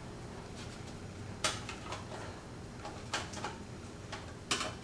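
Several light clicks and knocks of oven control-panel wiring connectors and plastic and metal panel parts being handled and pushed through the front cover, the sharpest about a second and a half in and near the end.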